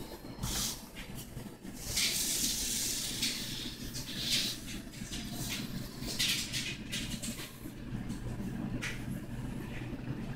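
Oil-based colored pencil rubbing across drawing paper in shading strokes, a scratchy hiss that comes in several bursts, the strongest a second or so long about two seconds in, over a steady low hum.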